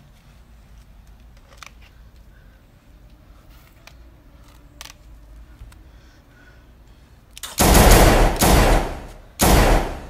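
Rapid automatic gunfire, dubbed in as a sound effect: a long burst of about a second and a half, then a shorter burst, after several seconds of faint background.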